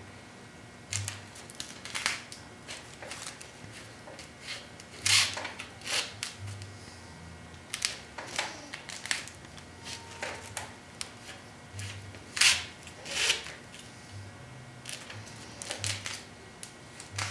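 Broom stitching: needle and twine drawn through tightly pressed broomcorn. It makes short dry swishing strokes, often in pairs about a second apart, with pauses between.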